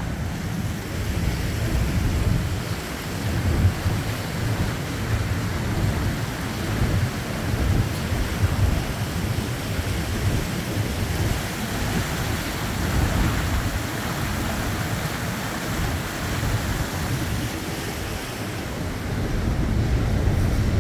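Wind buffeting the microphone and water rushing past the hull of a moving lake passenger boat, over the boat's engine rumble. Near the end the buffeting gives way to a steadier, louder engine hum.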